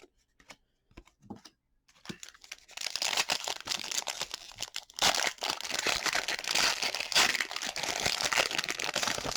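Foil wrapper of a football trading-card pack crinkling and tearing as it is handled and ripped open, starting about two seconds in after a few light ticks of cards being handled, and louder in the second half.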